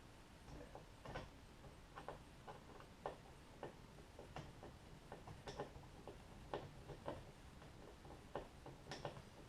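Faint, irregular small clicks and taps of hand work on a car door panel, from tools, screws and plastic trim being handled.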